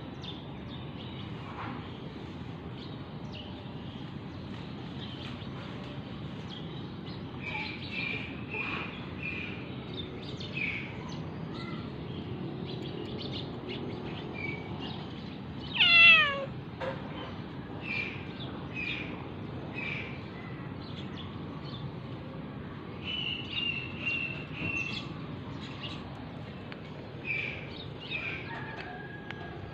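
Tabby cat meowing once about halfway through, a loud falling cry lasting about a second, with short high chirps scattered before and after it.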